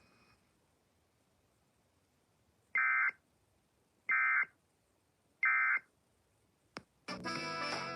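Emergency Alert System end-of-message signal: three short bursts of SAME digital data tones, each under half a second and about a second and a half apart. A click follows, and guitar music starts near the end.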